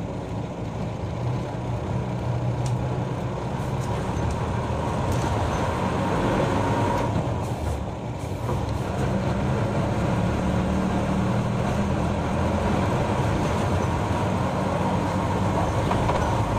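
Route bus running, heard from inside the passenger cabin: a steady engine hum with road noise. About eight seconds in the sound briefly drops, then the engine note climbs again as the bus picks up.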